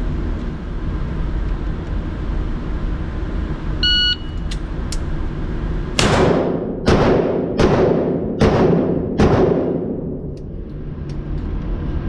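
A shot timer's start beep, then five pistol shots from an Atlas Gunworks 2011-style pistol fired in quick succession, a little under a second apart, each with a long echo off the walls of an indoor range.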